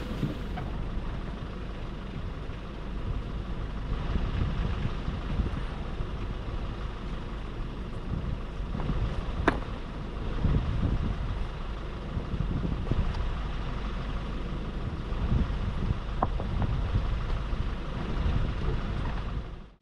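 Toyota Hilux engine idling steadily, heard from inside the cab while the truck stands still. Two sharp knocks break in, one about halfway through and one later on.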